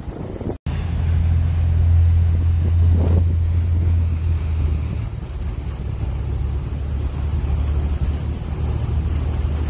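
Boat engines droning low and steady over the rush of churning wake water, with a brief dropout about half a second in.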